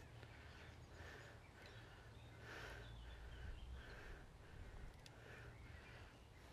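Near silence: faint outdoor ambience with a low rumble, and a distant bird calling a series of short notes at one pitch, about two a second.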